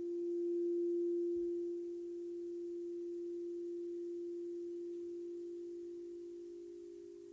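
A single steady ringing tone, slightly swelling about a second in and then slowly fading away.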